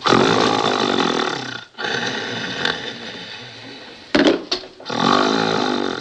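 A sleeping man snoring loudly: several long snores in a row, with a short, sharp snort about four seconds in.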